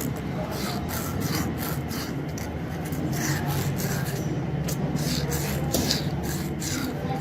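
Repeated scraping strokes from a hand tool working a workpiece, about two to three a second, over a steady low hum.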